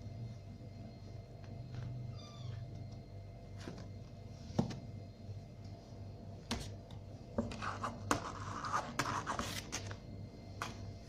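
Two kittens play-fighting: a short, high mew about two seconds in, then scattered thumps and a burst of scuffling and scratching in the second half.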